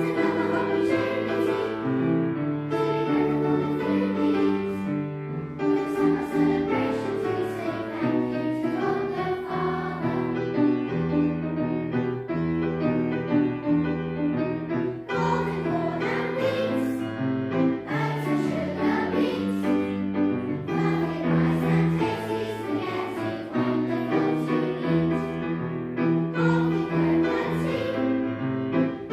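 A children's choir singing a song together over a steady instrumental accompaniment, with no breaks.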